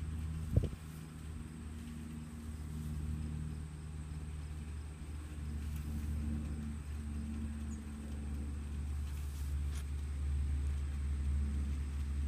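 Steady low rumble of a running engine, with one sharp thump about half a second in.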